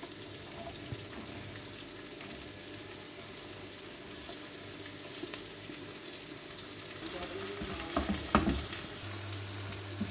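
Chopped onions sizzling in hot oil in a frying pan. About seven seconds in the sizzle grows louder as more onion is scraped in from a plate and stirred with a spatula.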